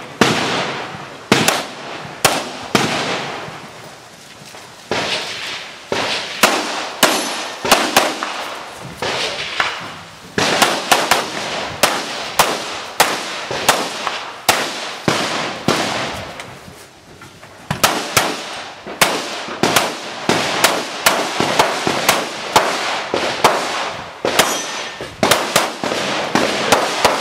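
Pistol shots fired in rapid strings, roughly two to three a second, with short pauses between strings while the shooter moves or reloads.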